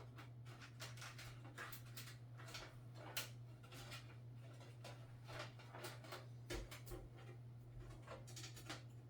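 Hands working cables and plastic parts inside a PC case: irregular light clicks and rustles, with one sharper click about three seconds in, over a steady low hum.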